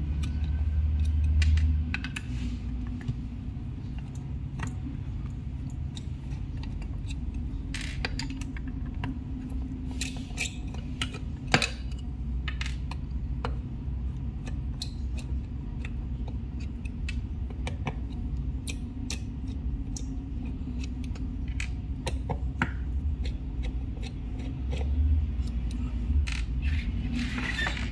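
Screwdriver backing the screws out of the cast aluminium cover of a Volvo I-Shift clutch valve unit: scattered small metallic clicks and clinks, with loosened screws set down on a wooden table. A steady low hum runs underneath.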